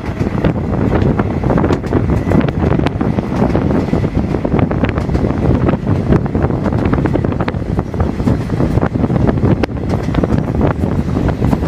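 Rush of air buffeting the microphone at the open window of a moving passenger train, with steady rumble and many sharp clicks and knocks from the coach and its wheels on the rails.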